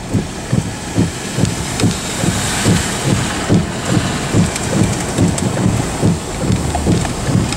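Rain and gusting wind on a stopped car, with a run of low thumps, about two to three a second, over a steady rain hiss.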